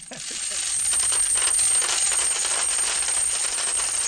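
A mass of coins pouring and clinking, fading in over the first second and then running on steadily, with a thin high tone above it.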